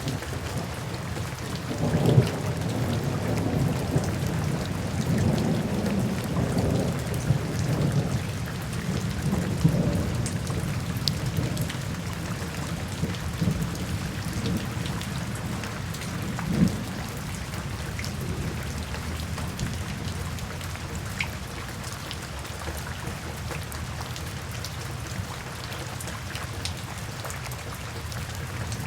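Steady rain falling, with low rolling rumbles of thunder that are strongest in about the first ten seconds, plus a brief louder rumble about sixteen seconds in.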